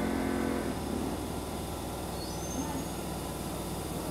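Nankai 2000 series electric train standing at a station platform, its onboard equipment giving a steady low hum. A voice is heard briefly at the start, and a short high rising chirp comes about two seconds in.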